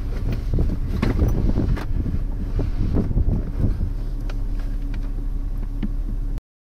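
Strong wind buffeting the microphone in gusts, a heavy low rumble. It cuts off abruptly near the end.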